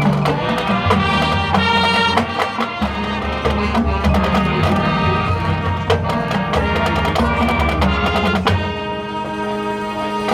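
High school marching band playing: sustained pitched chords over held bass notes, with frequent drum and percussion hits.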